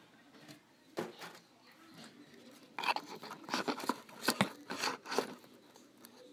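Handling noise of a phone: close rustling, scraping and clicking as it is picked up and moved with something against the lens. There is one sharp knock about a second in and a busy run of clicks and rubs in the middle.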